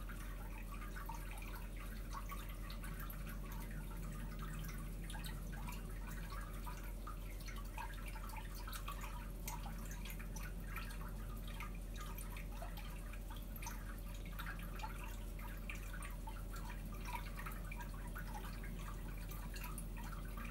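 Aquarium water trickling and dripping as a steady patter of tiny pops, over a constant low hum.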